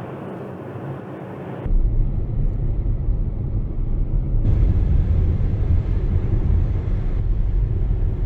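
A car being driven: a steady low rumble of engine and road noise. It gets louder and fuller about two seconds in and changes again about halfway through, where the footage is cut.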